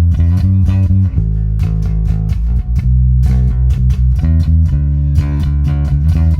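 Five-string Warwick Vampyre SN-5 electric bass played through a Neural DSP Quad Cortex amp modeller: a run of single plucked notes with a sharp, bright attack on each. The tone has lots of clang, with the bass's treble control turned up.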